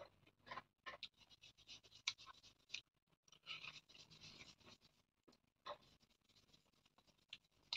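Faint close-up eating sounds: chewing, and fingers picking through pork and rice on a banana leaf, heard as scattered scratchy clicks and rustles.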